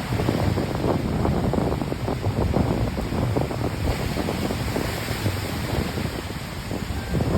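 Wind buffeting the microphone over the wash of waves on a beach, a steady, gusty noise.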